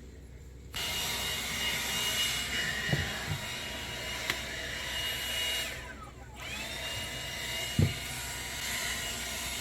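Vacuum cleaner switched on about a second in and running with a steady high whine. About six seconds in it spins down, its whine dropping, then starts up again. A few low thumps come over it, the loudest near the end.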